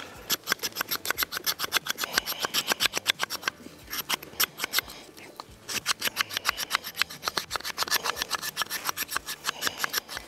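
The 90-degree spine of a J.O.A Knives Venti Venandi knife scraping a wooden dowel in quick strokes, about six a second, smoothing the surface. The strokes slow and thin out for about two seconds midway, then pick up again.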